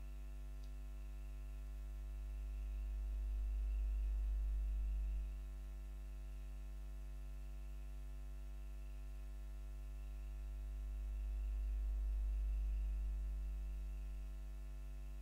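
Steady low electrical mains hum with a faint hiss. It swells louder twice, first to about five seconds in, where it drops back abruptly, and again from about ten to fourteen seconds in.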